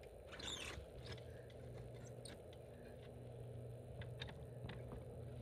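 Metal support arms of a swing-out kitchen box being pulled out from under the box: a short faint scrape about half a second in, then a few light clicks.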